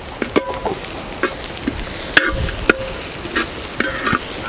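Long metal spatula stirring chopped onions frying in ghee in a large metal pan, with sharp clinks and knocks of the spatula against the pan's sides at irregular intervals.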